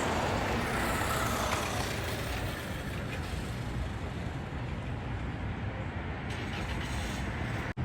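Road traffic noise, a steady rush of passing vehicles, swelling a little in the first second or two. It cuts out abruptly just before the end.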